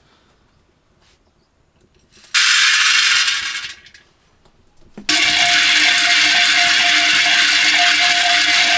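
Dry grains poured from a brass bowl into a hot clay pot: a loud rattling hiss lasting about a second and a half, fading out. After a short pause, the grains are stirred around the pot with a bundle of sticks, making a steady rattle that starts suddenly about five seconds in.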